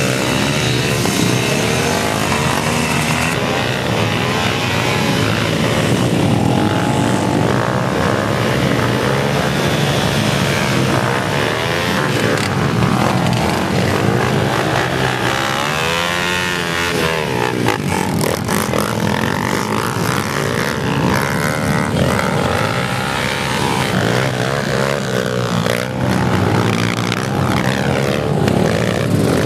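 Dirt bike engines revving hard, their pitch swinging up and down as the bikes spin their rear wheels in mud.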